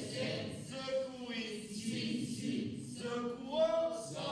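A voice singing a phonics song, syllable by syllable, each sung syllable starting with a hissing or buzzing consonant.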